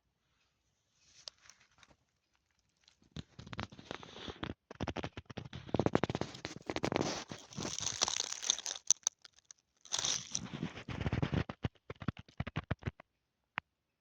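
Dry fallen leaves rustling and crunching in irregular bursts of crackle, with a brief pause a little past the middle.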